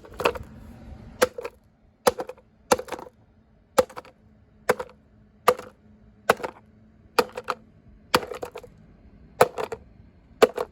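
Hammer blows on a broken plastic vacuum cleaner: about a dozen sharp knocks at roughly one a second, many followed at once by a second, lighter knock.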